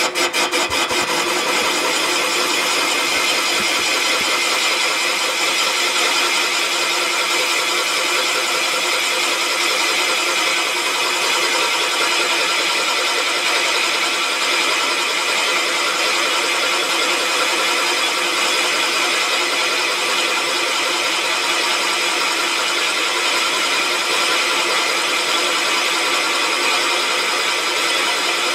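Serdi valve seat machine's spindle running, turning a 90-degree carbide cutter that bores the cast iron out of a cylinder head's exhaust port to make the press-fit pocket for a hardened exhaust seat insert. It is a loud, steady whine that holds one pitch.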